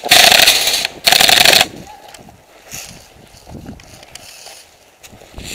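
Airsoft M249 light machine gun firing two rapid bursts, the first just under a second long and the second about half a second, followed by quieter rustling of movement.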